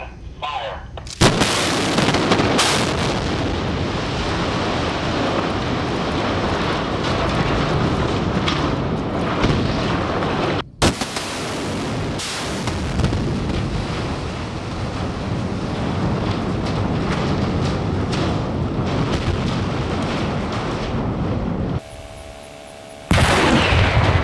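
Demolition charges detonating at the base of a water tower, a sharp blast with several cracks about a second in, followed by a long continuous rumble as the structure and debris come down. After a cut the loud rumble carries on. Near the end there is a brief quieter stretch with a steady tone, then another blast.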